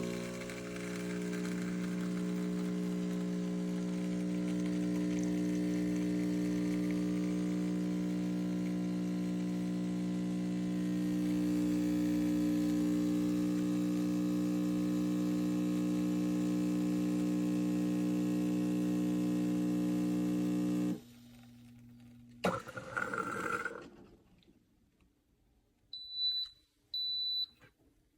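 Neretva espresso machine's pump running with a steady hum while brewing, cutting off suddenly about three quarters of the way through. A brief rush of noise follows, then two short high beeps from the machine near the end.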